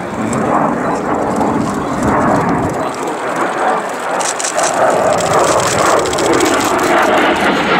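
Jet noise from a Kawasaki T-4 jet trainer's twin turbofan engines as it flies overhead: a steady rushing sound that grows brighter and more crackling about four seconds in.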